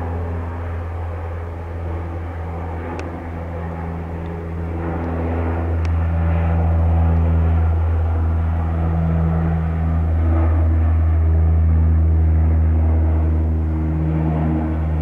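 Canadair CL-415 water bomber's twin turboprop engines droning steadily with several held propeller tones as it skims the lake scooping water, growing louder about halfway through as it comes nearer and begins to lift off.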